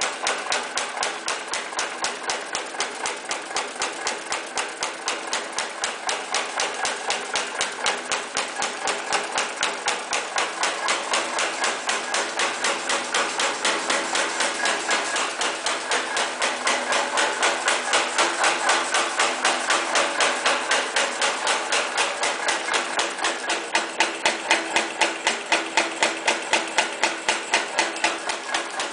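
High-speed mechanical punch press punching teeth into a steel band saw blade strip: a fast, even clatter of about six or seven strokes a second over the steady run of the machine.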